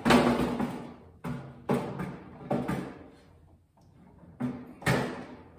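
Steel griddle top of a 22-inch Blackstone tabletop griddle clunking against its base as it is set down and shifted into place, with about six irregular knocks and a short pause in the middle.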